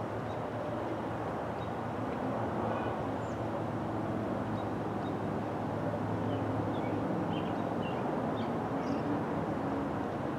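Steady outdoor background hum with a low rumble, like distant traffic, and a few faint high chirps scattered through it.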